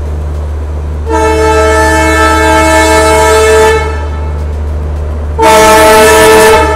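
Locomotive horn sounding two loud blasts, first a long one of nearly three seconds and then, about a second and a half later, a shorter one, as a train approaches the station. A steady low rumble runs underneath.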